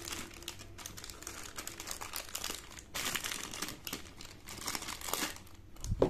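Clear plastic zip-lock bag crinkling and rustling in stops and starts as a stepper motor is worked out of it, ending with a thump about six seconds in as the metal motor is set down.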